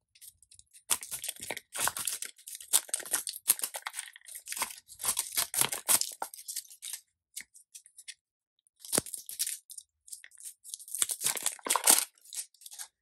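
Crinkly plastic wrapping being torn and peeled off a Care Bears plastic surprise capsule, crackling in irregular bursts with a pause of about two seconds past the middle.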